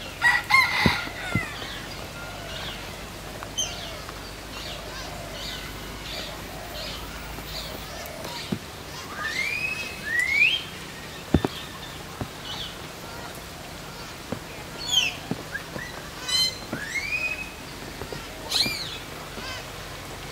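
Birds calling: a burst of calls at the start, then scattered short chirps and several rising whistled calls, with a few sharp clicks in between.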